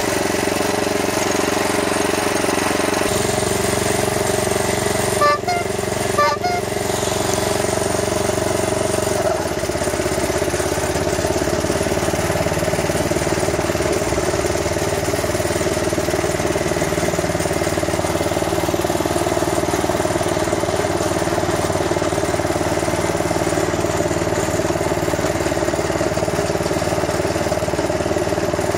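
Loncin petrol engine of a petrol-electric miniature locomotive running steadily under way, its low note shifting about nine seconds in. Two short sharp sounds come about a second apart, five to six seconds in.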